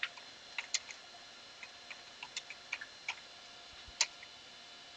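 Computer keyboard keystrokes: about a dozen light, separate clicks at irregular intervals, the loudest about four seconds in.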